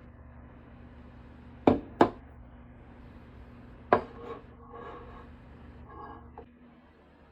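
Kitchen tableware handled: three sharp knocks, two close together and one about two seconds later, followed by lighter clinks, over a steady low hum that stops about six and a half seconds in.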